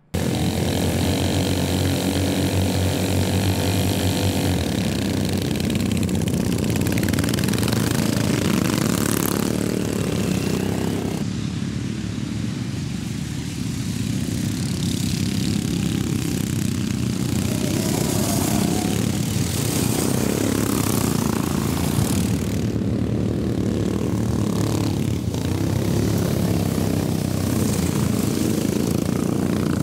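Several racing ride-on lawnmower engines running hard as the mowers race over a bumpy grass track, a continuous loud drone. The sound changes abruptly a few times.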